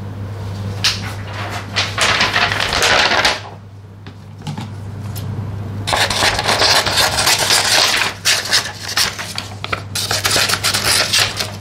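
A sheet of paper rustling and crackling as it is handled. After a short lull, scissors cut through the paper with a run of crisp snips mixed with paper rustle.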